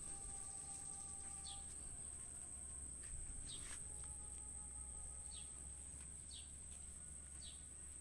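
Steady high-pitched insect trilling, from crickets or cicadas, under a bird giving short, falling chirps about five times, a second or so apart.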